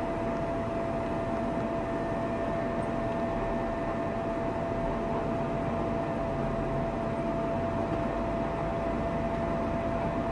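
Steady road and engine noise of a moving vehicle, picked up by a dashcam's built-in microphone, with a constant high hum over it.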